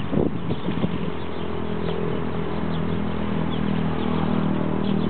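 An engine running steadily with an even low hum that grows slightly louder toward the end. A few short knocks in the first second.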